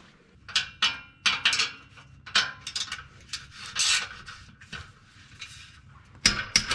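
Socket wrench working a header flange bolt loose under the car: a run of short, irregular rasping scrapes of metal on metal, with a sharper knock near the end.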